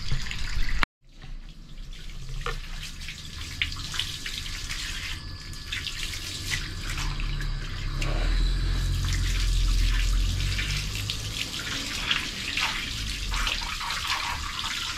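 Water running from a garden hose and splashing onto a concrete floor and a king cobra's body as the snake is rinsed, with scattered small splashes and knocks. The sound cuts out briefly about a second in.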